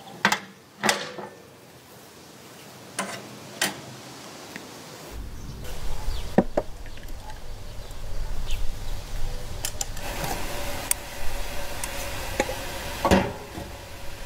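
Glass jars and metal tongs knocking and clinking as they are handled, in scattered single knocks. A steady low rumble starts about five seconds in.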